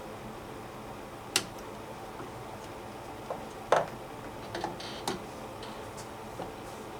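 A few sharp, irregular clicks and knocks, the loudest about halfway through, over a steady background hiss: parts and tools being handled while a washing machine is being taken apart.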